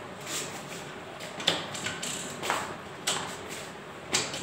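Bajaj Platina motorcycle's gear shifter and gearbox clicking as it is shifted up into fourth gear: about five sharp mechanical clicks and knocks, roughly one a second.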